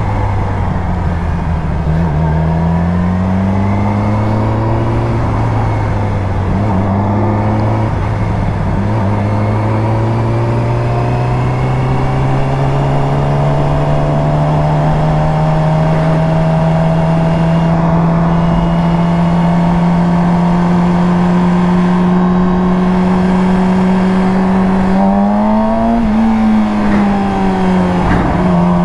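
Yamaha R6's inline-four engine under way on the road, its pitch climbing and dropping through two upshifts in the first few seconds, then rising slowly and holding steady at cruising speed, with one brief rise and fall near the end. Wind noise runs underneath.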